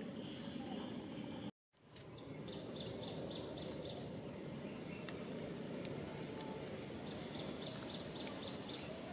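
Outdoor ambience: steady low background noise, broken by a quick run of high, evenly spaced chirps about five a second, heard twice. The sound cuts out completely for a moment about a second and a half in.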